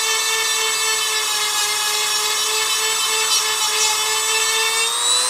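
EzzDoo rotary tool with a diamond bit running at high speed, grinding a chainsaw chain's cutter tooth that has its tip worn away. The motor's steady whine rises a little in pitch near the end.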